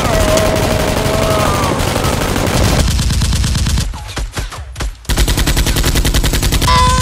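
Rapid automatic-gunfire sound effects laid over a toy Nerf blaster fight, in two long bursts of fast, evenly spaced shots. There are a few scattered shots in a roughly two-second gap near the middle.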